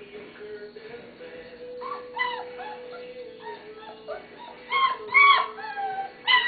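Three-week-old German Shepherd puppies whimpering and squealing in short, high cries that rise and fall in pitch. The cries start a couple of seconds in and are loudest and closest together near the end, over soft background music.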